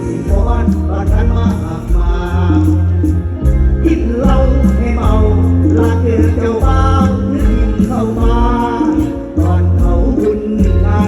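Live Thai luk thung band music with a steady cymbal beat, heavy bass and a wavering melody line.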